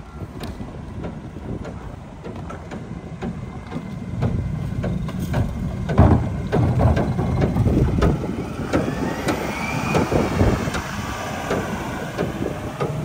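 A Mack MRU rear-loader garbage truck's diesel engine running and growing louder as the truck comes close, with clanks and knocks from the truck. There is a loud bang about six seconds in, and a wavering higher whine a few seconds later.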